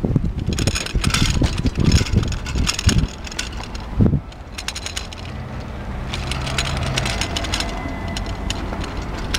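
Bicycle rattling and knocking as it rolls over paving stones, with clatter from the wire front basket in the first few seconds and a single knock about four seconds in. A low steady hum runs for a couple of seconds around the middle.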